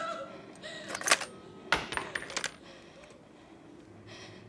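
Sharp metallic clicks and clinks: one about a second in, then a quick cluster with a high, bright ringing about two seconds in.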